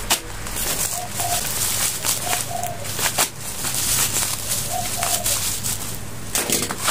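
Plastic packaging rustling as it is handled and unwrapped, with a few sharp crackles. Behind it a dove coos in short two-note phrases, three times.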